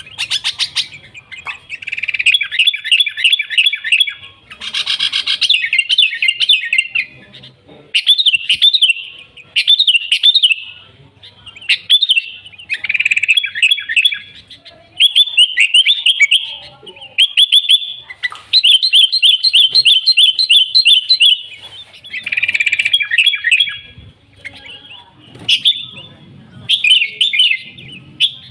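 Sooty-headed bulbul (kutilang) singing in full, frequent song: loud phrases of quick chirped notes, each a second or three long, following one another with short pauses.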